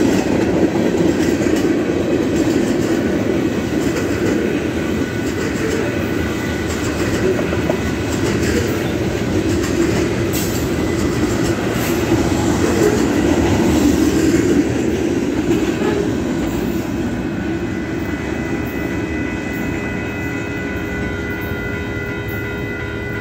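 Freight train of tank cars and covered hoppers rolling past, a steady rumble with wheels clattering over the rail joints, easing off gradually as the last cars go by. Steady high-pitched tones ring over it in the last few seconds.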